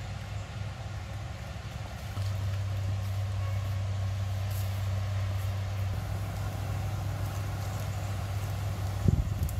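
A steady low engine drone, growing stronger about two seconds in and holding, with a single thump about nine seconds in.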